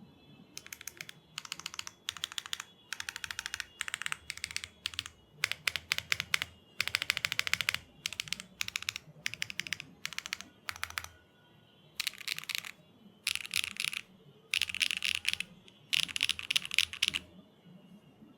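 Typing on a Matrix Corsa mechanical keyboard with HMX WaveRider V2 tactile switches, an aluminium plate, no foam and GMK keycaps: quick runs of keystrokes in bursts with short pauses between them.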